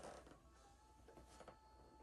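Near silence: faint room tone with a soft rustle at the start and a faint held tone.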